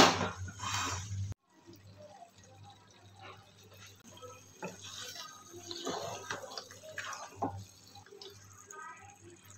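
Wooden spatula stirring thick chicken korma masala as it fries in a non-stick pan, scraping and slapping through it over a soft sizzle. A loud knock-and-scrape comes at the very start and cuts off suddenly a little over a second in; quieter stirring scrapes follow through the middle.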